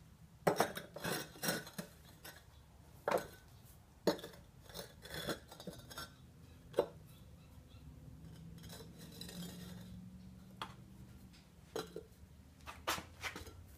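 Fire bricks being set in place on a wooden stand and knocked against one another: irregular clacks, knocks and short scrapes, some in quick clusters.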